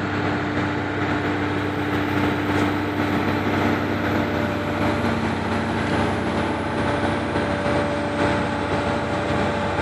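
Excavator diesel engines running steadily, with a hydraulic hum whose pitch steps down slightly a few seconds in.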